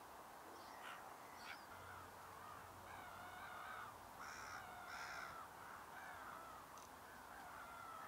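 Faint wild bird calls: a run of wavering, pitched calls, loudest about three to five and a half seconds in, with two short rising whistles in the first second and a half.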